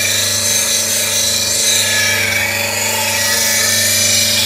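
Slow-speed grinder with a CBN wheel running at about 1400 rpm while a bowl gouge in a sharpening jig is ground against it. A steady motor hum sits under a smooth, even grinding hiss that wavers in pitch.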